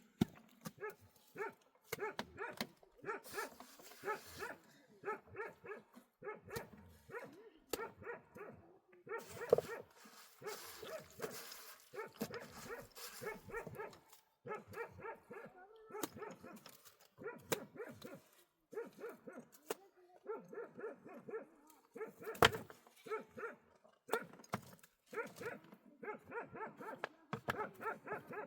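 Dog barking over and over in quick runs of short calls, with brief pauses between the runs. A few sharp clicks are heard among the barks, the loudest about ten seconds in and again past twenty seconds.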